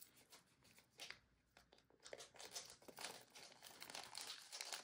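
Faint crinkling and rustling of a thin clear plastic sleeve handled by fingers as a photo keychain is worked back into it, mostly in the second half.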